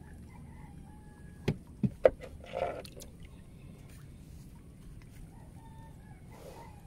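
Three sharp knocks in quick succession, then a short chicken cluck about two and a half seconds in, over faint bird calls and low outdoor noise.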